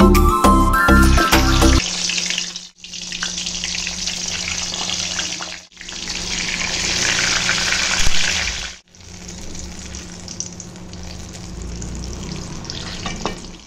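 Eggplant slices frying in hot oil, a steady sizzle heard in several short stretches with brief breaks between them, over a low steady hum.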